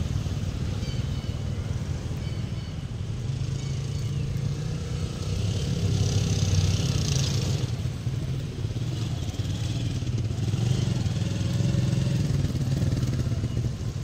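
A steady low engine drone runs under the scene. About five seconds in a high hiss swells and cuts off suddenly some two and a half seconds later, and short high chirps come and go in the first few seconds.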